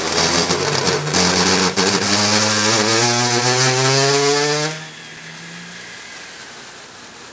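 Steam bursting out from under the lid of a pot of red-hot stones and shrimp after Shaoxing wine is poured onto the stones. It makes a loud hiss with a buzzing tone that rises in pitch, then cuts off sharply about five seconds in, leaving a faint hiss.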